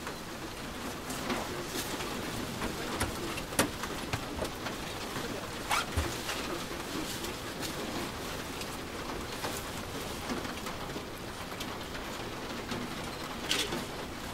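Scattered knocks and clicks from people moving about and settling in a parked aircraft's bare metal cabin, over a steady low hiss; no engines are running.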